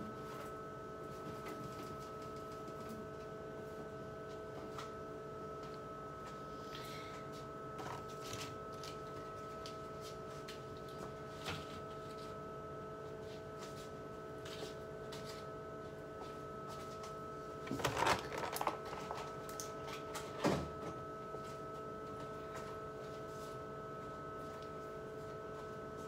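Food jars and bottles being set into a refrigerator's plastic door bins: scattered light knocks and clatters, with a louder cluster about eighteen seconds in and another knock a couple of seconds later, over a steady hum.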